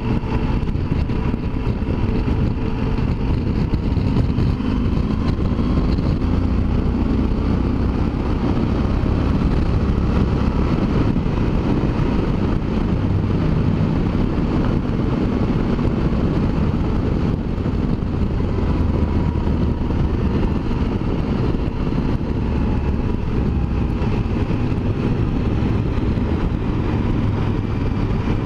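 Yamaha Super Ténéré 1200's parallel-twin engine running steadily at cruising speed, with wind and road noise, as the motorcycle rides into a road tunnel partway through.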